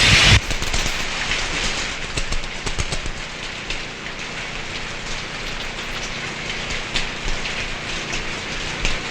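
Steady rain falling, with scattered small drips and spatters. Loud music cuts off suddenly within the first half second.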